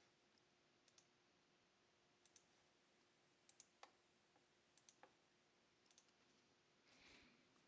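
Near silence with faint, scattered computer mouse clicks, often in quick pairs, about one every second. A brief soft rush of noise comes near the end.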